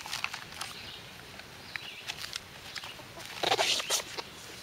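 Hands leafing through a thick stack of bullet-holed printer paper: pages crackling and rustling in short sharp bits, with a louder rustle of pages being turned about three and a half seconds in.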